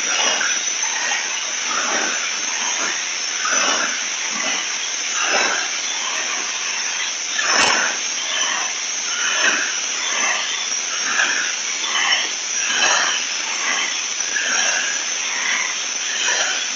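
Pressure washer spraying a hard surface. A steady high hiss surges and splatters as the wand sweeps back and forth, with one sharper hit about halfway through.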